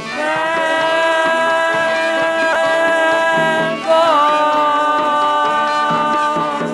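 Brass marching band holding a long sustained chord, then sliding with a brief waver into a new held chord about four seconds in.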